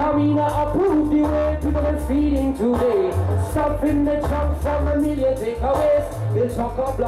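Live reggae band playing. A male vocalist sings a melodic line over a deep, pulsing bass line and a steady beat with regular hi-hat ticks.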